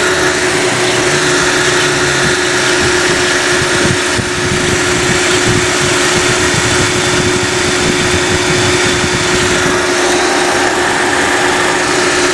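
2012 Chevrolet Sonic engine running steadily under the open hood, with the air-conditioning compressor turning. A steady whine comes in right at the start and holds over the engine's rumble.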